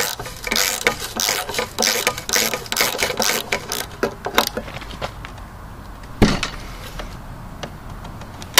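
Socket ratchet clicking rapidly on rusted nuts and bolts of a steel radiator bracket. The clicking stops about halfway through, and there is a single knock about six seconds in.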